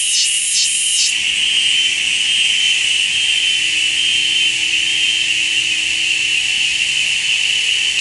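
Cicada singing: a loud, high-pitched buzz that pulses about twice a second at first, then about a second in settles into one steady, unbroken drone.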